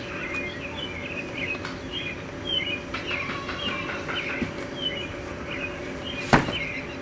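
Birds chirping over and over in short notes, with a steady hum underneath and one sharp knock about six seconds in.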